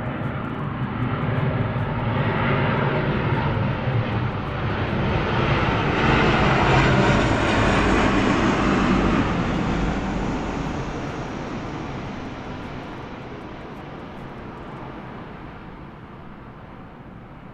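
Jet airliner flying overhead on its approach: the engine noise swells to a peak about halfway through, then fades steadily away.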